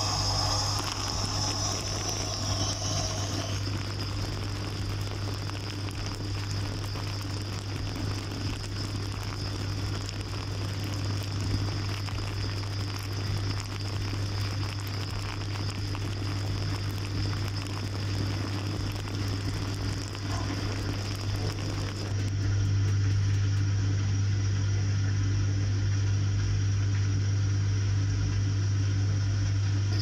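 Dishwasher running, heard from inside the tub: a steady low machine hum with a faint hiss over it. About two-thirds of the way through, the hum grows louder and the hiss loses its highest part.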